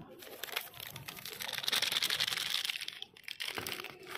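Plastic cement bag crinkling and rustling as it is handled and shaken to empty white cement powder into a pan. It is loudest in the middle, a dense crackle of many small ticks.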